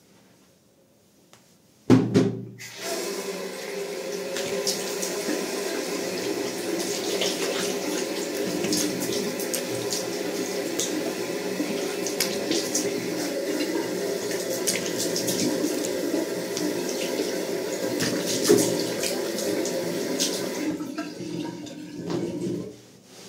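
Bathroom sink tap turned on about two seconds in and running steadily, with splashes as water is scooped onto the face to rinse off shaving lather. The tap is shut off shortly before the end.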